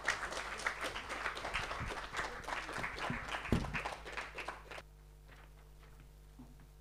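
Audience applauding, the clapping stopping abruptly about five seconds in and leaving a faint steady room hum.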